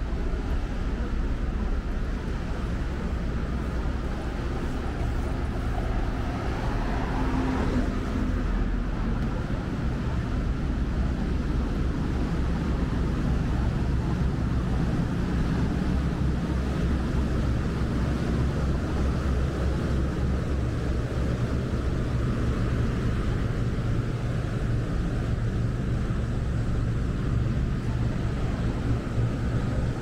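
Steady low rumble of city street background noise, with a low hum that settles in and holds from about twelve seconds in.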